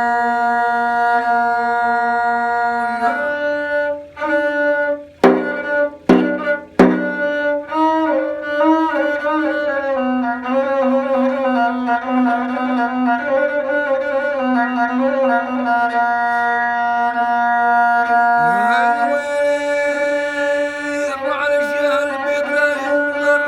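Rababa, the Bedouin single-string spike fiddle, bowed solo. It holds a long note, steps up, and plays a few short sharp strokes about five to seven seconds in. Then comes a wavering, ornamented melody that settles onto another long held note.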